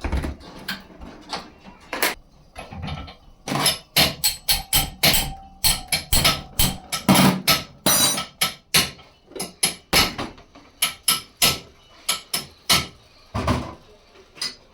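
A rapid, irregular series of sharp knocks and clicks, like hard objects striking metal, packed most densely through the middle and thinning out toward the end.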